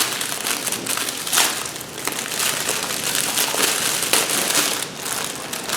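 Plastic bags of diamond-painting drills crinkling and rustling as they are handled.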